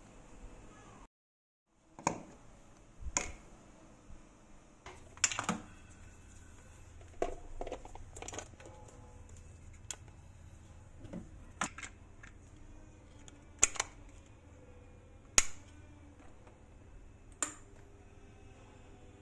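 A series of sharp plastic clicks and knocks, one every second or two, as a three-pin plug is pushed into a switched wall socket, the socket switch is flicked and a desk fan's push buttons are pressed. A faint low hum joins about five seconds in.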